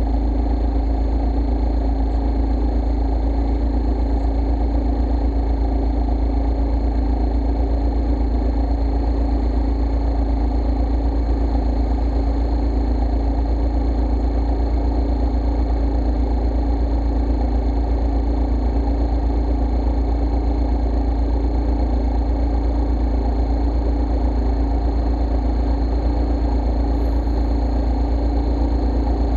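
Scooter engine idling steadily at a standstill, an even, unchanging running note with a strong low rumble.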